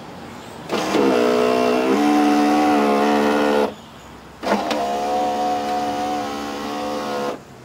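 Power window motor in a 1991 Oldsmobile Bravada door, with the door panel off, driving the glass in two runs of about three seconds each, separated by a short pause. The first run's whine drops to a steadier, lower pitch about two seconds in. The glass tends to pitch forward out of its track because its slider is not gripping.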